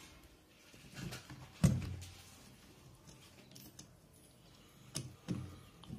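A few small clicks and knocks as insulated spade connectors are pushed onto the terminals of a refrigerator thermostat, the loudest about a second and a half in, with soft handling noise between them.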